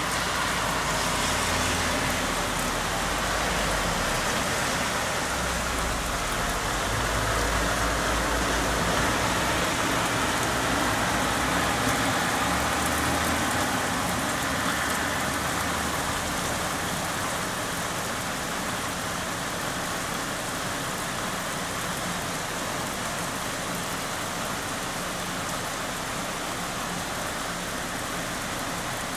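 Heavy thunderstorm rain falling steadily, with a low rumble underneath during the first half.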